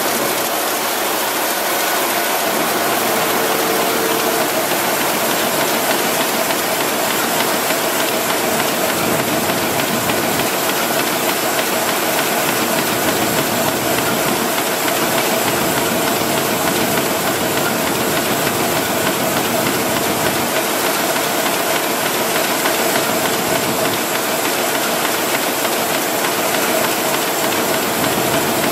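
RYOBI 758P eight-colour long-perfecting sheetfed offset press running at speed: a steady mechanical hiss and clatter as sheets feed through the units, with a faint steady hum tone underneath.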